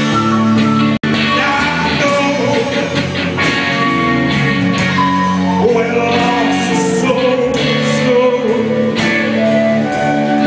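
Live rock band playing, with electric guitars and a steady drum beat. The sound drops out for an instant about a second in.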